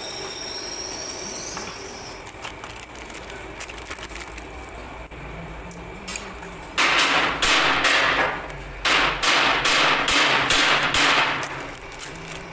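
Plastic wrapping on steel roller bearings crinkling, in two loud stretches in the second half, with light clinks of steel bearing races being set down before that.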